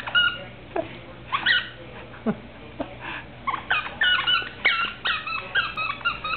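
Giant schnauzer whining and yipping excitedly in short high calls, a few drawn-out falling whines at first, then calls in quick succession in the second half: a happy, worked-up dog with a new plush candy cane toy.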